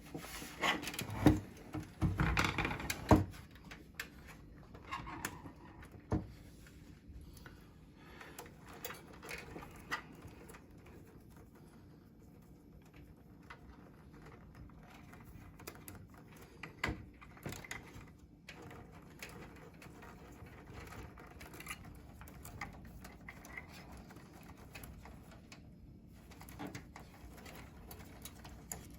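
Hands handling computer hardware: scattered clicks, taps and knocks, a quick cluster of louder knocks in the first three seconds, then sparse small clicks.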